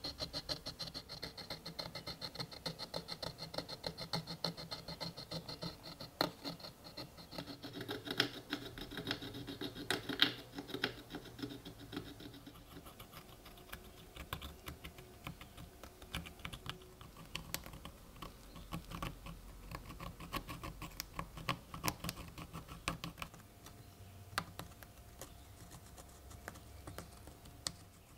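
Wooden toothpick scraping and picking dirt and oxide crust from the surface of old coins: a dense, irregular run of fine scratchy clicks.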